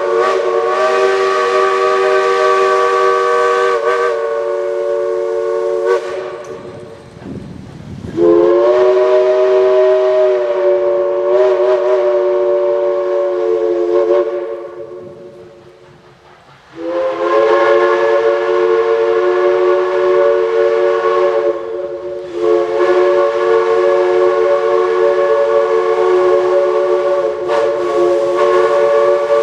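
Steam locomotive chime whistle blowing three long blasts, a chord of several steady notes sounding together. The last blast is held the longest.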